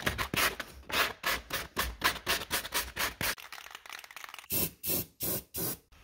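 Hand sanding with an abrasive pad, scrubbing back and forth in quick strokes, about four a second, to take off surface rust before the rust converter goes on. Near the end come three longer, louder strokes.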